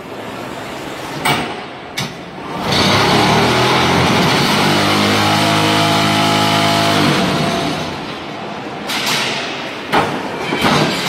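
QT6-15 automatic unfired-brick (concrete block) machine working through its moulding cycle. There are metallic clanks, then a loud steady machine hum for a few seconds in the middle, then more sharp knocks near the end.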